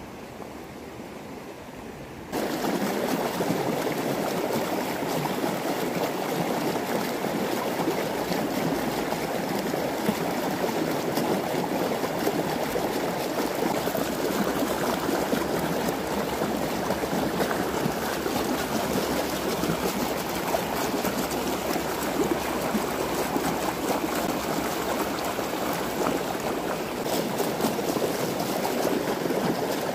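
Shallow creek water rushing and splashing over stones close by, a steady churning flow. It comes in suddenly and much louder about two seconds in.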